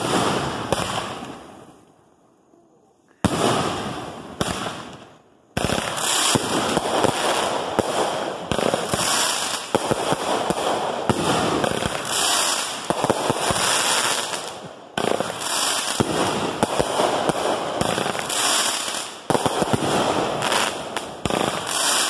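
Consumer aerial fireworks going off from the ground. There are two sudden shots in the first few seconds, each fading away. Then, from about five and a half seconds in, comes a continuous barrage of rapid shots, bursts and crackling.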